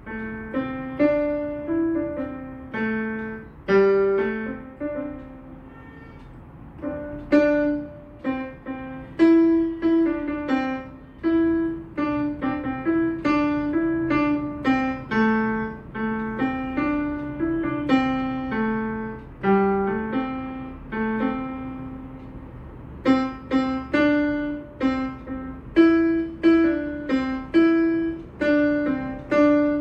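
Yamaha PSR-E473 portable keyboard playing a simple melody in its piano voice: single notes struck one after another at an even pace, each ringing briefly and fading.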